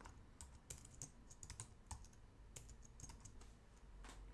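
Faint, irregular keystrokes on a computer keyboard: a short run of typing.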